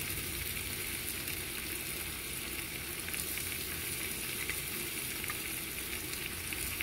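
Sliced onions cooking in beer in a frying pan, giving a steady sizzle, as browned chicken pieces are set into the pan with metal tongs.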